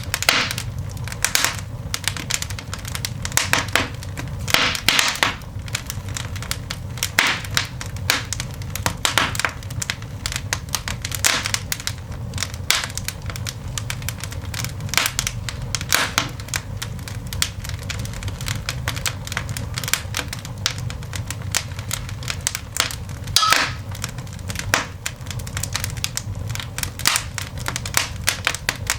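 Coal fire burning in a cast iron dog grate, with irregular crackles, snaps and pops, a few sharper ones standing out, over a steady low rumble.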